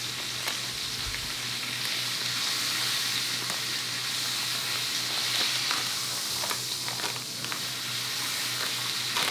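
Steak frying in a hot pan with a steady sizzle, with a few light clicks of a utensil against the pan.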